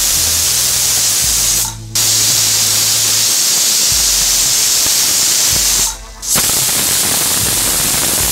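Aluminium pressure cooker whistling as steam blows out past its weight valve: a loud, steady hiss that breaks off briefly about two seconds in and again about six seconds in. The whistles are counted to time the pressure-cooking of country chicken, five being enough here.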